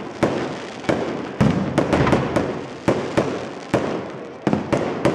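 Aerial firework shells bursting in quick succession: about a dozen sharp bangs in five seconds, at uneven spacing, each dying away in a fading tail.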